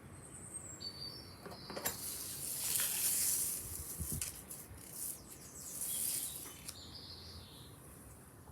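Paper and leaves rustling as cut plant material is handled and laid out on a sheet, with a few short, high bird chirps in the background.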